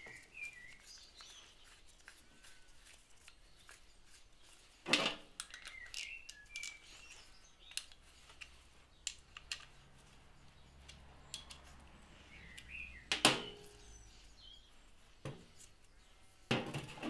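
Small hand ratchet clicking in short runs as bolts are tightened into an aluminium water pump housing, with scattered ticks and clinks of metal parts being handled. There are a couple of sharper knocks, about five and thirteen seconds in.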